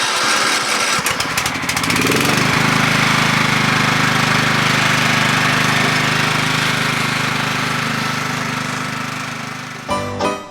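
Small gasoline engine speeding up, its ticking quickening over the first two seconds, then running steadily at speed with a hiss above the engine note. Music comes in near the end.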